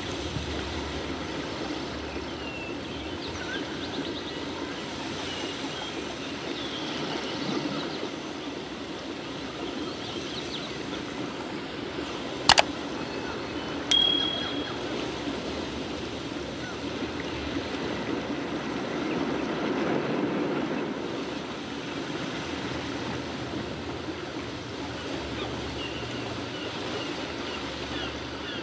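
A subscribe-button animation sound effect: a sharp mouse click about twelve seconds in, then a bright bell ding a second and a half later that quickly fades. Under it runs a steady, even rushing background with faint high chirps.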